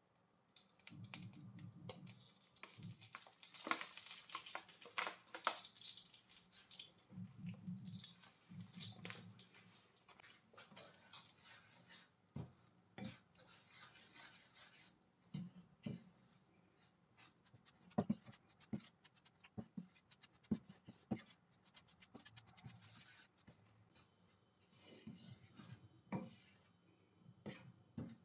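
Butter and dry milk powder being stirred and scraped in a nonstick pan, first with a spoon and then with a wooden spatula. A soft rustling scrape comes first, then scattered sharp taps of the spatula against the pan.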